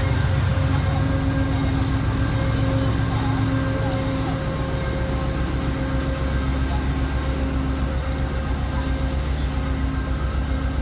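GE P40DC diesel locomotive running steadily as its train moves slowly along the platform: a deep, even engine rumble with a steady hum above it.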